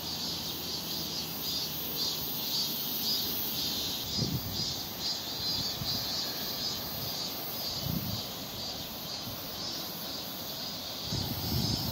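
Steady high-pitched, pulsing chirr of summer insects in the trees, with a few brief low rumbles of wind on the microphone.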